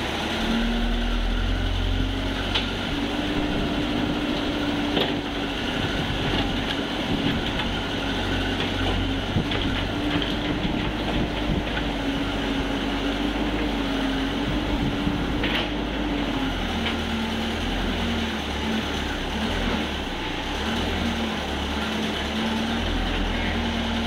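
Hitachi excavator's diesel engine running under hydraulic load while digging and loading clay. Its pitch steps up just after the start, holds, and drops back lower about two-thirds through, with a few sharp knocks.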